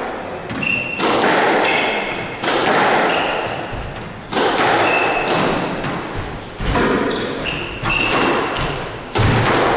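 Squash rally: sharp racket strikes and the ball hitting the walls, echoing in the court about every second or two. Short high squeaks from court shoes on the wooden floor come between the shots.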